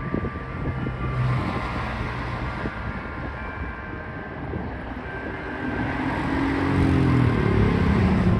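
Road vehicles passing close by. The loudest comes through near the end, its engine note rising and then falling as it goes past. Church bells ring faintly underneath as thin steady tones.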